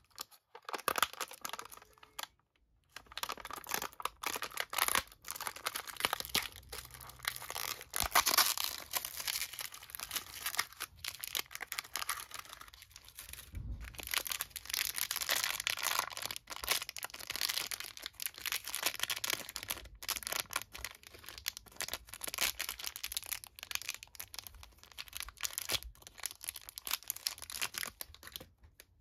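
Disney Doorables blind-box packaging being torn open by hand and the foil bag inside crinkled and torn: a dense, uneven crackle, with a short pause about two seconds in.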